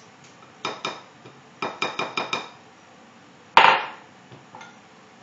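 Glass measuring cup and utensil knocking against a ceramic mixing bowl while sticky molasses is scraped out: two knocks, then a quick run of about five. About three and a half seconds in comes one louder clunk as the glass cup is set down on a granite countertop.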